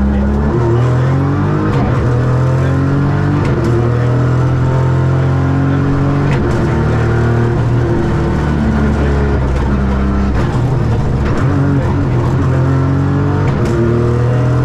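Ford Fiesta Rally3's 1.5-litre turbocharged three-cylinder engine running hard under load. Its pitch climbs and drops in steps as it is taken up and down through the gears, with a few sharp clicks.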